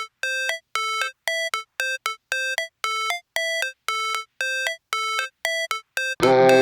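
Electronic synth music: short, clean beeping notes repeating about twice a second with silent gaps between, in a ringtone-like pattern that steps between two pitches. Shortly before the end a full music track with bass comes in.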